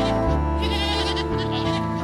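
Background music with a goat bleating once over it, a quavering call from about half a second in to just past one second.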